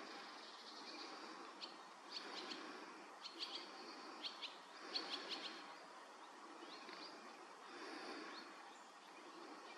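A bird's short, sharp calls: several quick groups of chirps between about one and a half and five and a half seconds in, and a few fainter ones a little later, over a faint steady background noise.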